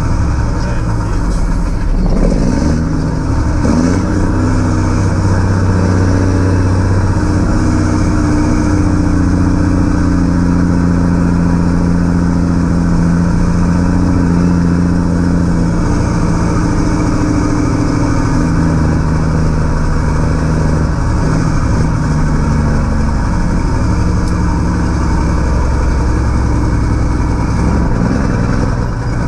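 Straight-piped 1984 Mack R600 semi with its Mack 237 six-cylinder diesel pulling a heavy load of corn at road speed, heard from inside the cab. The engine note wavers a few seconds in, holds steady, then drops to a lower pitch about two-thirds of the way through.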